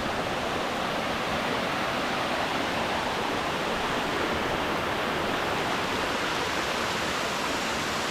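Waterfall, falling water making a steady, even rush.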